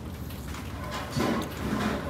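Eating by hand: fingers working rice and curry on a plate, with two short soft sounds about a second in and near the end over a steady low hum.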